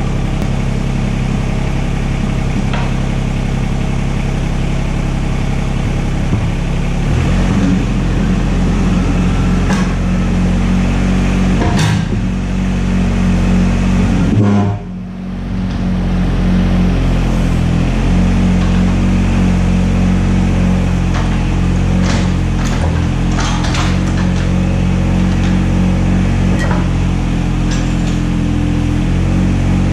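Skid steer's diesel engine running steadily, its speed shifting a few times, with a short dip in the middle before it picks back up. Occasional metal clanks sound over it.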